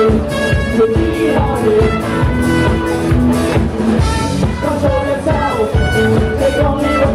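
Live band playing to a steady drum beat, with electric guitars, bass and trumpet.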